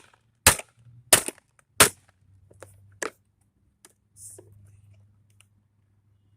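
Three sharp strikes about two-thirds of a second apart, like a hammer knocking on a small appliance's plastic housing to break it open. Then a few lighter clicks and a short rattle, over a low steady hum.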